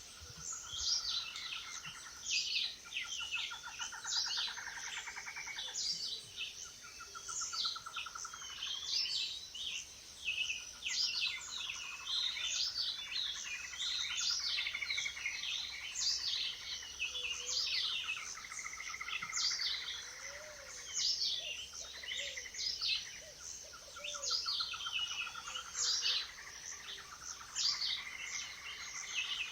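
Tropical forest bird chorus: several birds calling at once with quick, repeated high chirps that slide downward in pitch, and a lower rattling trill that comes and goes.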